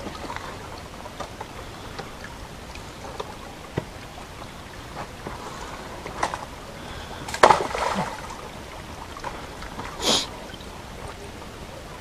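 Small shallow stream running and trickling steadily, with a few short knocks and scuffs, the loudest about seven and a half seconds in.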